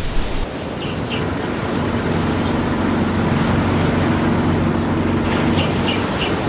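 Motor raft's engine running steadily over water, its drone growing slightly louder, with a few short high chirps about a second in and again near the end.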